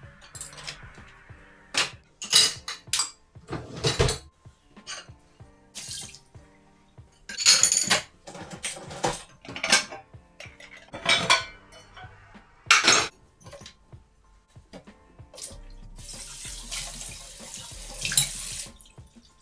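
Dishes and cutlery clattering in a kitchen sink, a dozen or so sharp knocks. The tap then runs for a couple of seconds near the end.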